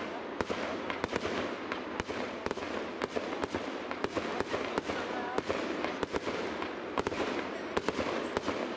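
Fireworks going off: a dense, irregular run of sharp cracks and bangs, several a second, over a continuous rushing noise.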